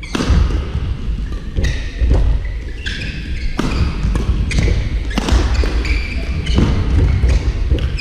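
Badminton doubles rally in a sports hall: sharp racket strikes on the shuttlecock, roughly one a second, with footfalls and shoe squeaks on the court floor.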